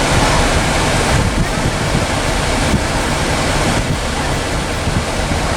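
Steady rushing wind and road noise from a moving car, with wind buffeting the microphone.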